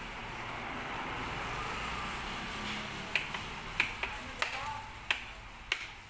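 Five sharp clicks, about two-thirds of a second apart, over a low room hiss as the ThinkPad T14 Gen 2 laptop is handled and its lid opened.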